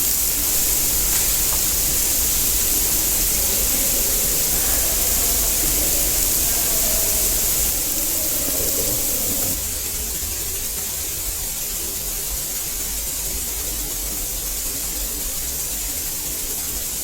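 Heavy artificial indoor rain pouring steadily onto the floor of a rain installation, a dense hiss of falling water. It eases slightly about halfway through.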